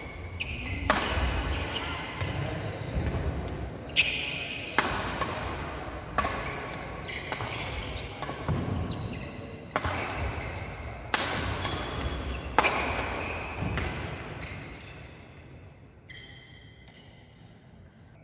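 Badminton rackets striking a shuttlecock back and forth in a doubles rally, a sharp hit about every second, echoing in a large hall. The hits stop about four seconds before the end.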